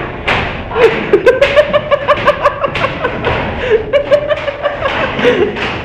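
A group of young people laughing and shouting over one another, with rapid bursts of laughter and several sharp smacks mixed in.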